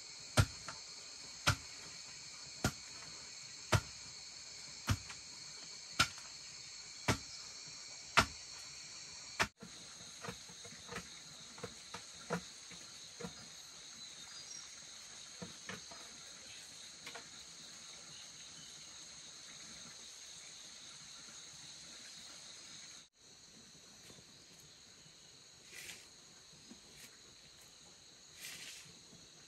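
Hand-tool blows on bamboo at a steady pace, about one sharp strike a second, then lighter, quicker taps. A constant high insect chorus runs underneath, and two soft knocks come near the end.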